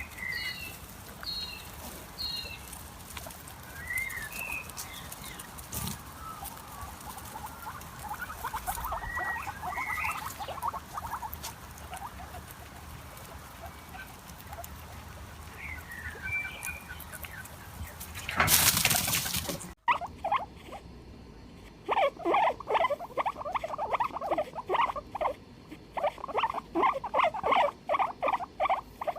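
Guinea pig squealing: rapid, repeated loud squeaks, several a second, through the second half. Before that come scattered short, high chirps and a brief loud burst of noise just before a cut.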